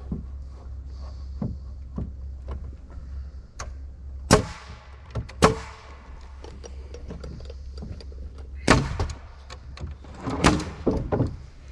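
Sharp knocks and thumps of wood framing work, struck and set in irregular strikes, the two loudest about a second apart near the middle, over a steady low hum.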